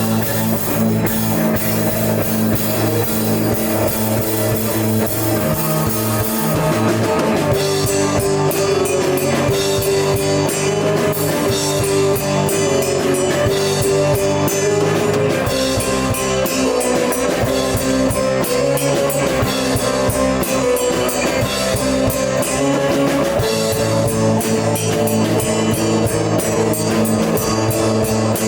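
Prog rock band playing live, with electric guitar and a drum kit; cymbals wash through the first seven seconds or so, then give way to sharper, repeated hits. Recorded through a camera's built-in microphone.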